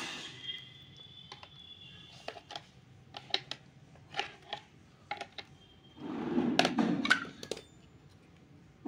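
Pliers nibbling and snapping small pieces off the edge of a plastic Splendor motorcycle mudguard: a series of separate sharp clicks and cracks, then a louder stretch of crunching and handling noise about six seconds in.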